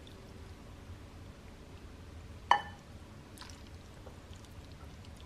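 A ladle knocks once against a ceramic bowl about two and a half seconds in, with a short ringing clink, while nước chấm dipping sauce is ladled and poured quietly over a bowl of rice vermicelli and grilled meatballs.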